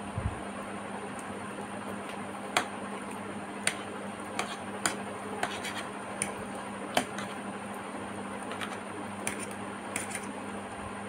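Metal fork clinking and scraping on a ceramic plate while twirling noodles: about ten sharp, irregular clicks over a steady background hiss with a faint hum.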